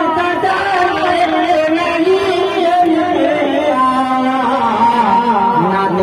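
A man singing into a microphone through a sound system, in long drawn-out notes that slide in pitch.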